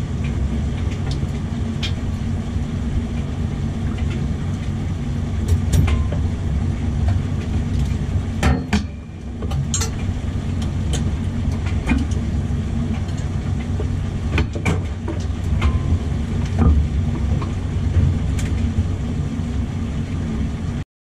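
Toyota 2JZ inline-six in a turbocharged drag car idling steadily, heard from inside the cockpit, with scattered clicks and knocks as the driver moves about and climbs out.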